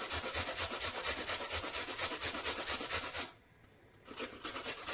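Turnip grated by hand on a fine grater: quick, even rasping strokes. They pause for under a second about three seconds in, then carry on.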